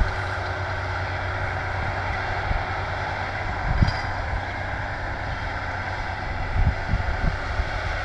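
Tractor and Feraboli Trotter Omnia baler-wrapper combination running steadily while baling, with low wind thumps on the microphone now and then.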